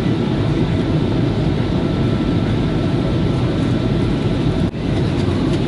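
Steady cabin rumble of a Boeing 737NG in flight, from the engines and the air rushing past, heard from inside the passenger cabin, with a faint steady high whine over it. There is a brief dip in the noise, like a click, about four and a half seconds in.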